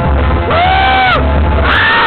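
Live percussion group playing a steady, heavy drum beat, with a long held shout over it about half a second in and another starting near the end.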